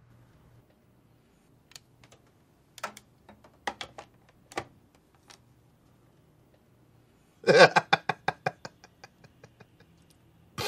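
Scattered light clicks and taps of handling at a desk, including a desk phone handset. Then, about two thirds of the way in, a man's stifled laugh: a quick run of breathy bursts that fade away.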